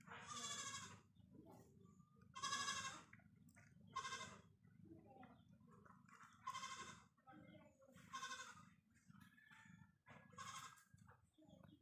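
Young nursing kittens mewing: about six short, high, thin calls, one every couple of seconds, over a low steady rumble.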